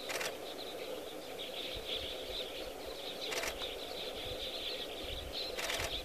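A dove held in a heron's bill flapping its wings in short bursts: once at the start, once a little past the middle, and once near the end. Between the bursts there is a steady background chirring.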